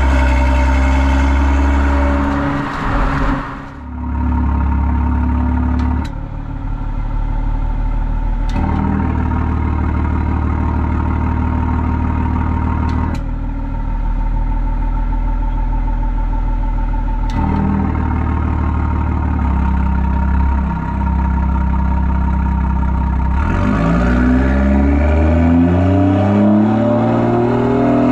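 Exhaust of a BMW B58 turbocharged inline-six with a catless downpipe and M Performance exhaust, valves closed, running at light throttle with a steady, even drone. In the last few seconds the pitch rises as the engine pulls higher, then drops back.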